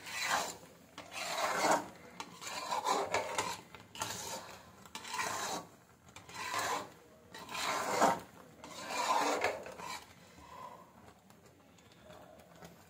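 A spoon scraping round a pan of thick, melted jaggery syrup being cooked for sesame laddoos, in about eight slow rasping strokes that stop near the end.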